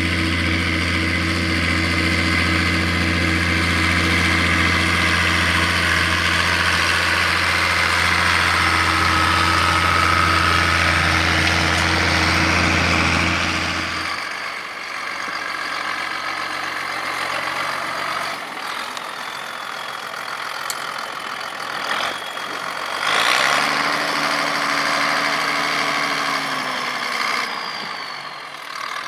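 Ursus 1604 tractor's six-cylinder diesel engine running as it pulls a stubble cultivator, with a strong steady drone. About halfway through the sound cuts to a quieter, farther engine, with a couple of sharp clicks and then a brief rise in engine pitch near the end.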